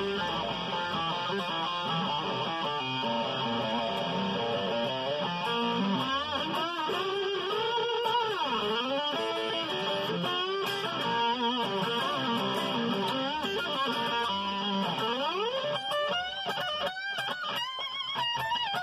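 Electric guitar played solo: a lead riff of sustained notes, several of them bending or sliding in pitch, turning to quicker picked notes near the end.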